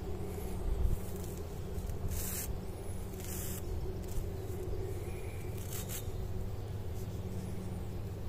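A few short rustling scrapes, two close together about two to three and a half seconds in and another near six seconds, over a steady low rumble.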